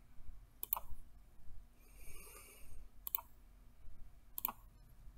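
Computer mouse and keyboard clicks: a few sharp clicks, some in quick pairs, spaced a second or more apart.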